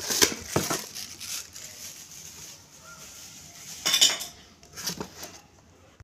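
Hands handling a cardboard box and the plastic bulb holder fitted in it: scattered sharp knocks and clicks with rubbing, loudest just after the start and in a cluster about four seconds in.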